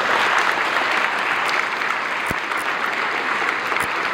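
Audience applauding steadily, a hall full of people clapping, with one sharp knock a little past two seconds in.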